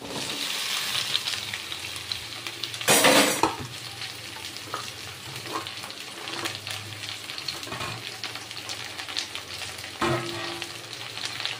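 Chopped okra (ladyfinger) tipped into hot oil in a kadai with onions and green chillies, sizzling steadily as it fries. A brief, louder clatter comes about three seconds in, and a smaller one near the end.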